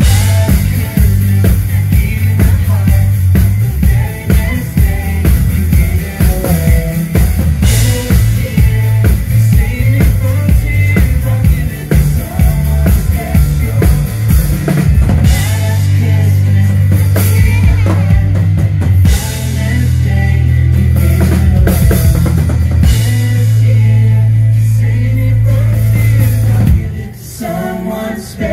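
Amplified band music: a driving drum kit with bass drum and snare over long, sustained bass notes, dropping away near the end.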